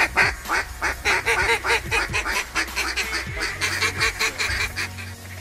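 A flock of waterfowl calling overhead: a dense, rapid chorus of high honks mixed with quacks, thinning out near the end.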